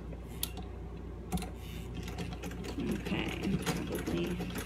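Early-1900s Singer Red Eye sewing machine running steadily as it stitches through fabric, with a few light mechanical ticks. It is sewing back over its own stitch line as a hand-made backstitch, since the old machine has no reverse.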